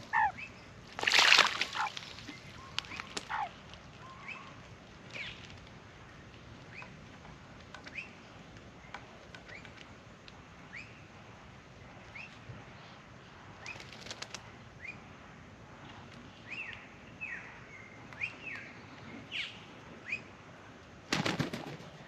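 Australian magpie beating its wings in the water of a birdbath, two splashy bursts in the first two seconds. A shorter burst of flapping comes about fourteen seconds in, and another near the end as it flies off. Between them, short falling bird chirps come every second or two.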